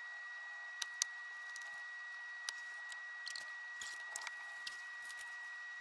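Scattered faint clicks and soft crackles of hands handling plastic plant pots and loose potting soil, over a steady high-pitched whine.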